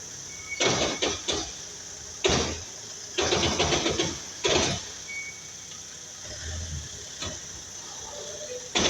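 Irregular metallic clunks and knocks from the drivetrain of a Mitsubishi Triton 4x4: single knocks, then a quick rattling run of them about three seconds in. This is the drivetrain noise the truck has as a fault.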